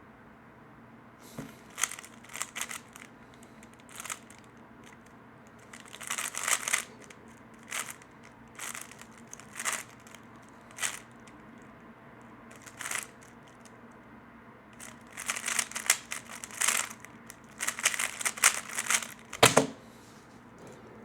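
3x3 speedcube being turned by hand: quick bursts of plastic clicking and clacking, separated by short pauses. A heavier thump near the end.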